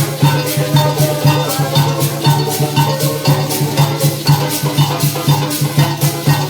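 Live parang music with no singing: shakers keep a quick, even beat over a pulsing bass line, with pitched instruments playing steadily above.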